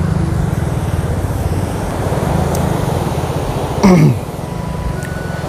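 A motor vehicle engine running steadily with a low, evenly pulsing rumble. About four seconds in, a short loud sound slides steeply down in pitch.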